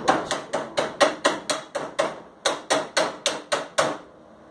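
Rapid strikes of a chipping hammer on steel, about five a second, knocking slag off a fresh weld. There is a brief pause about two seconds in, and the strikes stop near the end.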